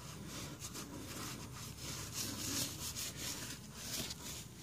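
A blue shop towel rubbing back and forth over wet, foamy chrome on a motorcycle exhaust, making a run of soft, uneven wiping strokes as the rust-remover solution is wiped off.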